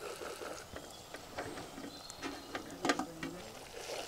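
Faint scattered taps and scrapes of a wooden spatula stirring fried shallots and tomatoes in a clay pot, with a light frying sizzle rising near the end.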